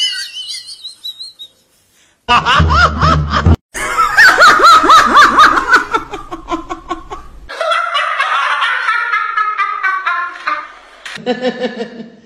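Men laughing hard in a series of short clips cut one after another, with high-pitched, wavering laughter. A brief silent gap and sudden cuts separate the clips.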